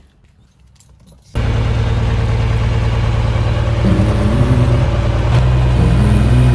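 Cessna 182's piston engine and propeller running with a steady drone, heard from inside the cabin. It cuts in suddenly about a second in, after a quiet start.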